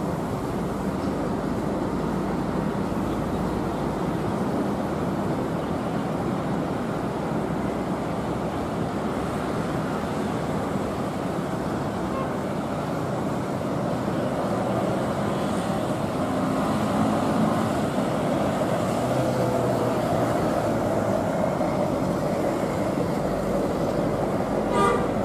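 Twin-engine jet airliner on final approach, its engine drone building over a steady roar of distant road traffic, with a faint rising whine in the second half. A short sharp sound just before the end.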